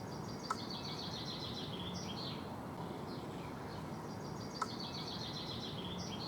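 A songbird singing outdoors: two fast trilled song phrases about four seconds apart, each with a short flourish at the end, over a steady background hiss.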